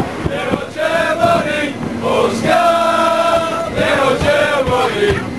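A crowd of Irish football fans, mostly men, singing a chant together inside a packed tram, with long held notes.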